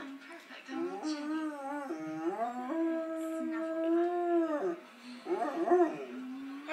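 Vizsla howling: a wavering howl that settles into one long held note, breaking off just before five seconds in, then a shorter quavering howl.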